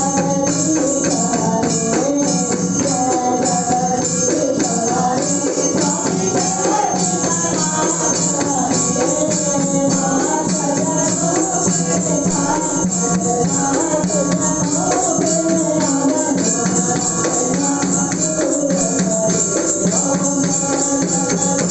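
Devotional aarti music: a fast, unbroken metallic jingle with voices singing a wavering melody over a steady drone.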